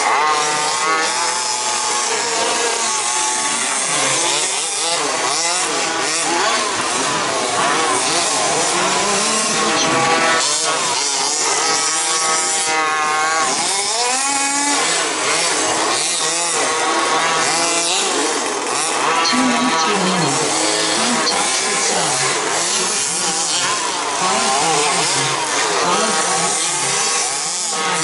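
Several radio-controlled 2WD racing buggies' motors whining, their pitch rising and falling over and over as the cars accelerate, brake and jump around the dirt track.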